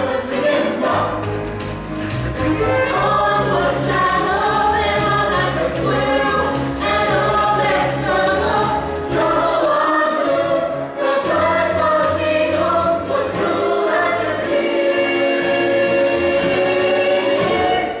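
Musical-theatre cast singing together as a chorus over instrumental accompaniment, with bass notes and drum hits under the voices; in the last few seconds the voices hold long notes.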